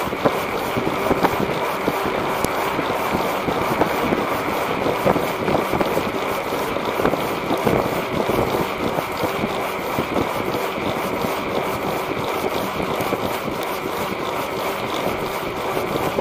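Steady wind noise buffeting the microphone of a camera riding on a moving bicycle, mixed with the rush of its front tyre rolling over the street.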